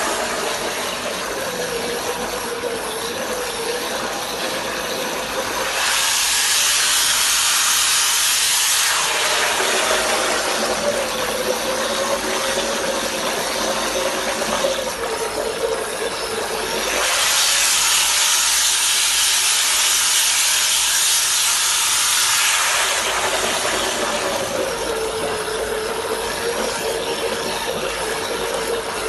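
Electric power tool running fully submerged in a bucket of water, its motor whining steadily while the spinning head churns and splashes the water. The splashing swells louder twice, about a quarter and two thirds of the way through.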